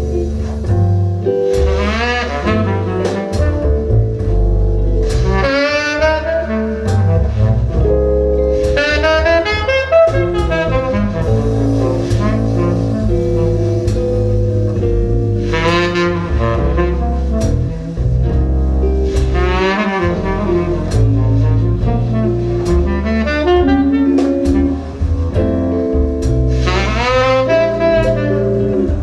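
Jazz recording with a saxophone playing phrases over a double bass line, reproduced through Audio Note AN-J LX loudspeakers, with the CD Zero used as a transport into the Audio Note DAC 0.1x.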